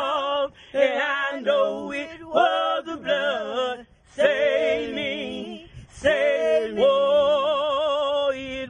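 Three women singing a gospel song a cappella. Their voices hold long, wavering notes, the longest in the last two seconds.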